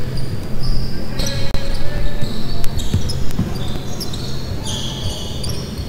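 Basketball game on a hardwood court: sneakers squeaking on the floor in short high chirps again and again, with a few thuds of the ball bouncing.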